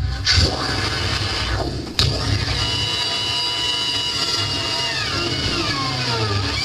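Harsh amplified noise from contact-miked glass, played live through a PA: a dense, scraping wall of distortion over a low rumble, with a sharp crack about two seconds in and several tones sliding downward near the end.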